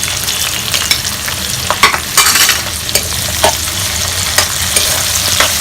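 Chopped onion, garlic, cumin and curry leaves sizzling in hot oil in a kadhai, with a spoon stirring through them and clicking against the pan every so often.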